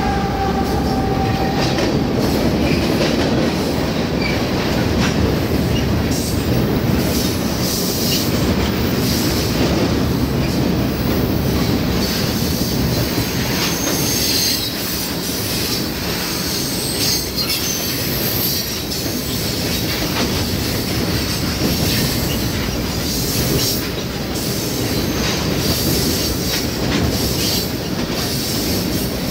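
CSX freight train passing close by: the steady rumble and rattle of freight cars rolling past, with wheels clacking over rail joints and brief high-pitched wheel squeal around the middle and again near the end.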